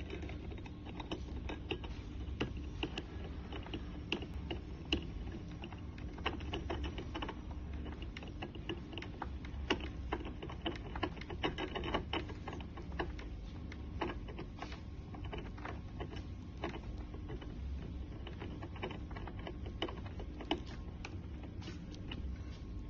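Irregular light metallic clicks and taps as a metal furniture leg is turned by hand in its threaded mounting plate, over a steady low hum.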